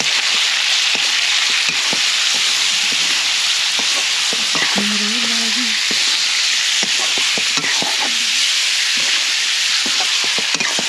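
Pork pieces coated in spice mix sizzling in hot oil in a black iron karahi, with a steady frying hiss. A wooden spatula stirs them, scraping and knocking against the pan again and again.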